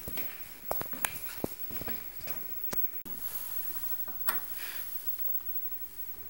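Scattered sharp clicks and light knocks, irregular, over a faint hiss: a phone being handled while it films, fingers rubbing and tapping on it.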